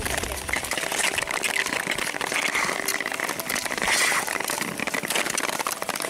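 Skate blades hissing and scraping as they glide over clear black lake ice, with small clicks of ski-pole tips striking the ice.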